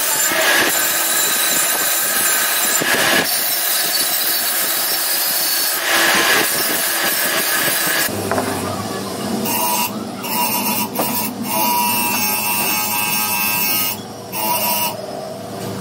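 Workshop machinery: a steady loud hiss like rushing air, then from about halfway a machine running with a low hum and steady tones, interrupted by a few brief breaks.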